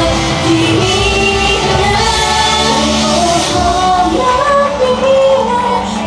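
Female idol group singing a pop-rock song live, the voices carrying the melody over a loud, continuous band backing.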